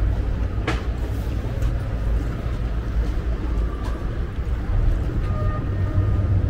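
Steady low rumble of boat engines running on the canal below.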